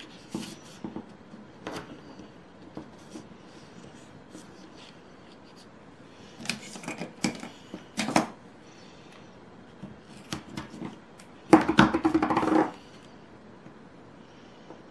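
Paper being handled: rustling, crinkling and small clicks as double-sided adhesive tape is laid along an envelope flap and pressed down, with a longer, louder rasp near the end.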